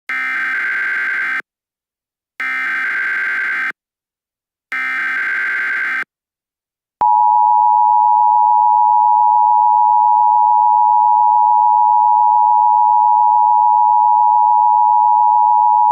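Emergency Alert System tones: three bursts of SAME header data, each about a second and a quarter long with about a second between them, then the steady two-tone EAS attention signal starting about seven seconds in.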